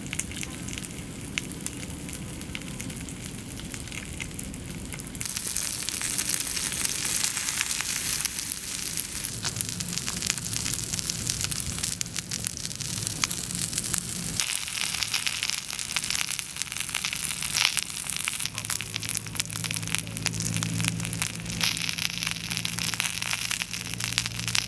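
Whole fish frying in oil in a shallow metal pan over a wood fire: a steady sizzle with crackling, louder from about five seconds in.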